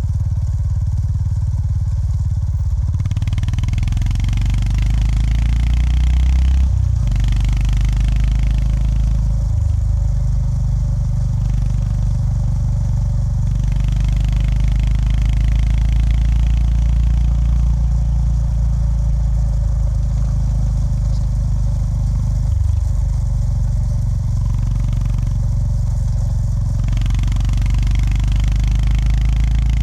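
Honda GB350S air-cooled single-cylinder engine running under way, heard from the rider's seat. The engine note dips briefly and changes pitch several times, and a hiss of wind and road noise rises and falls over it.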